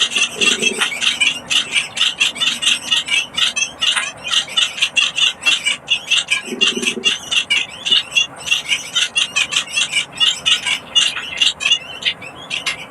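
Munia (bondol) chicks begging as they are fed: a rapid, continuous stream of high-pitched chirps, several calls a second.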